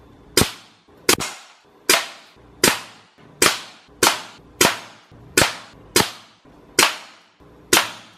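Norica Dark Bull 6.35 mm (.25) regulated PCP bullpup air rifle firing shot after shot, about eleven sharp cracks each with a short fading tail, roughly 0.7 s apart.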